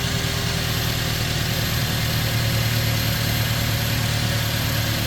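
2005 Toyota Tacoma's engine idling steadily.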